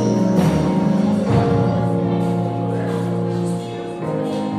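Live gospel worship music: a woman singing into a microphone with a choir, over sustained chords held for long stretches.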